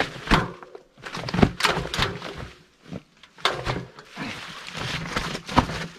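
Mountain bike knocking and clattering over wet, rounded limestone rock steps on a climb: a string of irregular thunks and clunks of tyres and bike striking rock.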